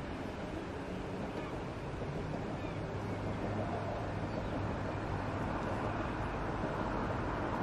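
Steady outdoor background noise, a hiss and rumble with a low hum, slowly growing louder; no clear sound from the feeding bird stands out.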